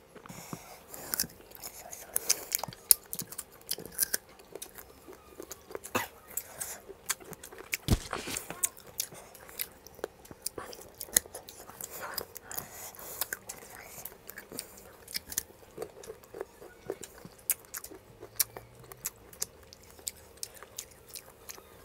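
Close-up crunching and chewing of raw guava, biting and chewing in quick, irregular crunches.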